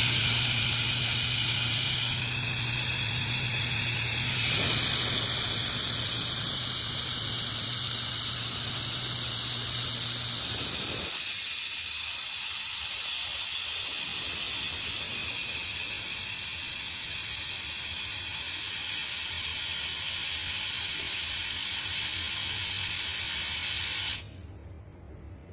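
Robotic arc-welding torch hissing and crackling steadily as it lays a weld, with a low machine hum under it for the first half. The arc cuts off suddenly about a second before the end.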